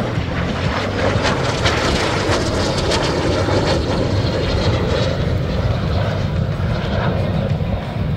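L-39 Albatros jet trainer making a pass, its single turbofan engine giving a loud, even jet roar that swells about a second in and holds.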